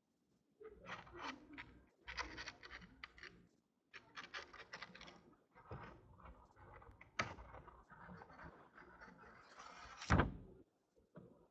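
Faint handling noise: scattered rustles and clicks from objects being moved about on a table, with one louder knock about ten seconds in.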